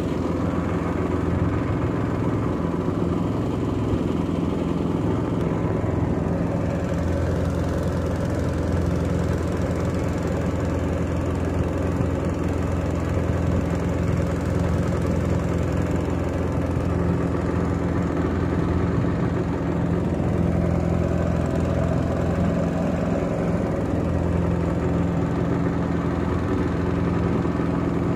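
Boat engine running steadily at an even speed.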